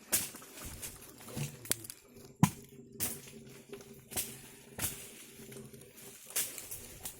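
A series of short, sharp knocks and crunches, irregularly spaced about one every half second to second, the loudest about two and a half seconds in, over a faint steady hum.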